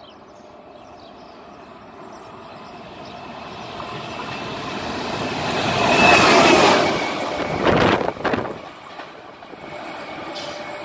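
E.401 electric locomotive running light through the station, its noise building as it approaches and peaking as it passes close by. Near the end of the pass there are a few sharp clacks from the wheels over the rail joints, then the sound falls away.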